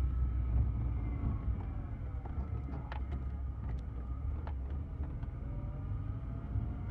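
A car engine runs low and steady, heard from inside the cabin as the car creeps along, with a few faint clicks. A faint drawn-out high tone wavers in the background, which the driver takes for La Llorona's cry, still sounding but fainter.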